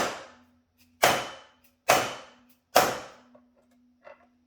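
Dead blow hammer striking the flywheel puller on a 1979 Johnson 15 hp outboard to break the flywheel loose from the crankshaft: four sharp blows about a second apart, each dying away over about half a second.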